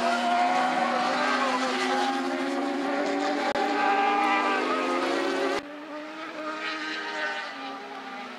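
Several superbike racing engines revving hard, their pitch rising and falling as the bikes shift through a corner. About halfway through the sound cuts abruptly to a quieter, more distant engine note.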